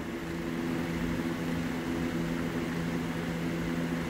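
Triumph TR7 two-speed windscreen wiper motor running at its low speed, a steady electric hum.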